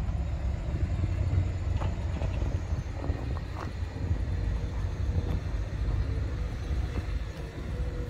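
Steady low outdoor rumble, with a few faint knocks around the middle and a faint steady hum in the second half.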